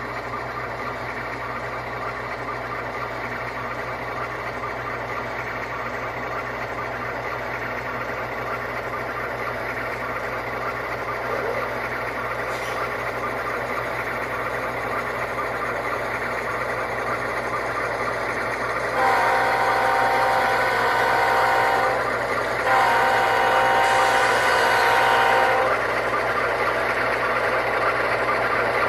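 ESU LokSound decoder sound of a GE ES44AC diesel prime mover, played through the HO model's small speakers, running steadily and slowly growing louder. About two-thirds of the way in comes the locomotive air horn: two long blasts of a multi-note chord, each about three seconds.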